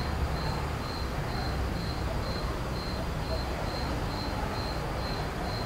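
A cricket chirping in an even, high-pitched pulse about twice a second over a steady low rumble of outdoor background noise.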